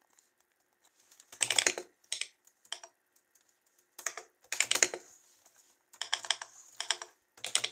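Typing on a computer keyboard: short bursts of keystrokes separated by pauses.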